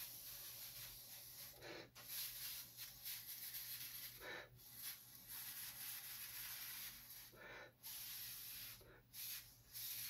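Faint steady hiss of air blown through a thin tube onto wet ink, pushing the colours across the piece. It breaks off briefly about every two to three seconds.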